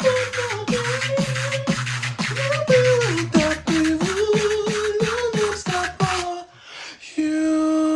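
Tag-team beatboxing: a sung vocal melody line glides over a mouth-made beat of sharp kick and snare clicks and a low bass tone. About six seconds in the beat drops out for a moment, then a single note is held.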